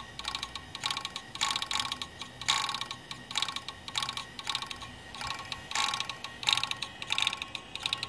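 Old full-height hard drive working noisily: irregular bursts of clattering clicks, two or three a second, over a faint low hum. The sound of a really bad drive that still boots.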